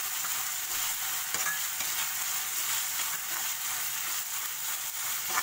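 Onion, capsicum, corn and sauce sizzling in a hot pan while a metal spoon stirs them, with a few light knocks of the spoon against the pan.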